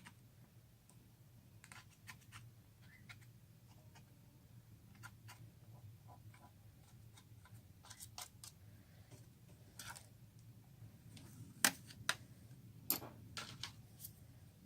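Slime being worked by hand, making irregular small clicks and pops, with the sharpest ones near the end.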